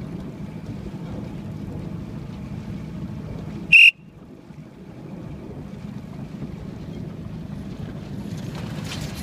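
A single short, sharp whistle blast about four seconds in, high-pitched and much louder than everything else, over a steady low rumble of wind and water.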